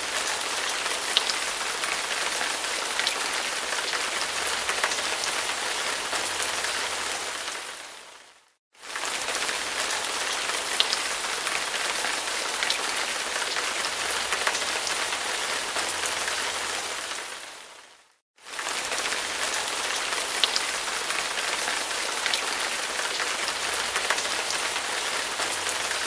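Looped rain sound effect: a steady hiss of rain with scattered drop ticks, fading out and starting over about every nine seconds.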